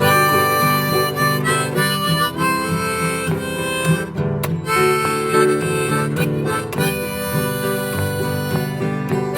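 Harmonica playing a melody over a strummed acoustic guitar in the key of G, the instrumental intro of a folk song.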